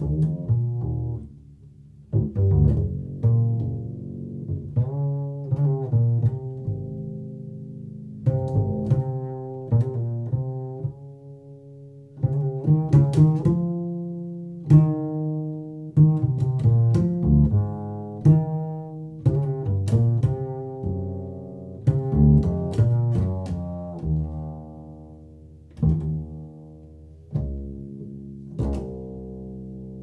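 Double bass plucked pizzicato: single notes with sharp attacks that ring and fade, in slow phrases without a steady beat.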